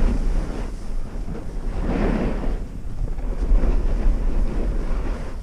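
Wind rushing over the microphone of a skier's body-worn camera while skiing downhill, with the scrape of skis on groomed, packed snow swelling and fading through the turns.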